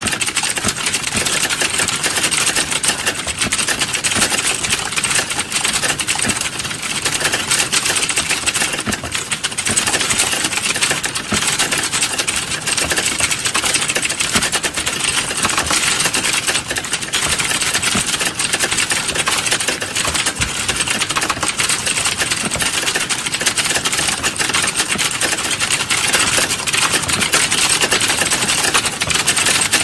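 Fast, continuous typing on a computer keyboard: a dense, unbroken stream of key clicks.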